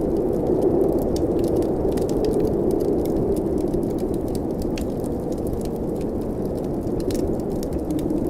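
Wood fire crackling with frequent small pops and snaps over a steady low rush of blizzard wind.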